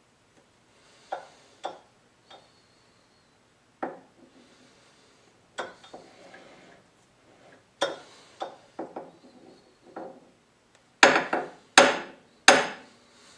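A brass-faced hammer tapping a workpiece held in a lathe chuck, nudging it into center against a dial indicator. Light taps and knocks come every second or so, with soft rubbing in between as the chuck is turned by hand. Near the end come three hard raps close together.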